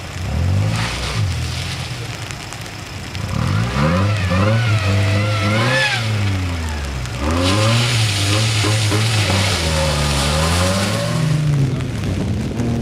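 Rally car engine revved hard through the gears, its pitch climbing and dropping again and again as it accelerates and shifts, with a rushing hiss of tyres and air over it.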